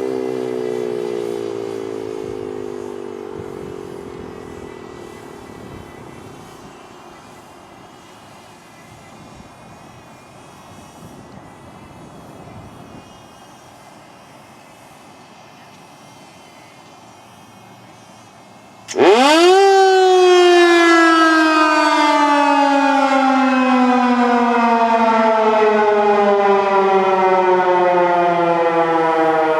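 RM-130 outdoor warning siren on test. Its wail winds down in pitch and fades over the first few seconds. After a long lull it comes back abruptly and loud about two-thirds of the way in, its pitch leaping up and then sliding slowly down.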